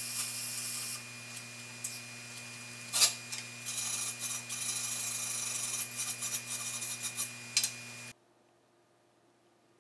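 Flux-core wire welding arc crackling steadily for about the first second, over a steady electrical hum. After a knock about three seconds in come quick, irregular scraping strokes of a hand tool on the steel rim, cleaning slag off the fresh flux-core weld. All of it cuts off suddenly near the end.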